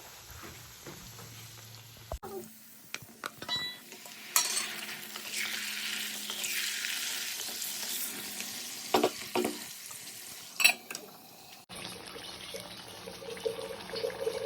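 Pork and mustard greens frying in a kadai: a loud sizzle that swells in the middle, with a few sharp clinks of the spoon against the pan as it is stirred.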